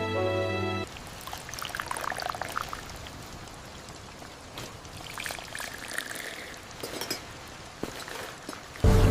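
Liquid, most likely tea at the stall, being poured with trickling and splashing, a rising pitch in the pour early on, then a steady dribble. Soft music is heard briefly at the start and comes back louder near the end.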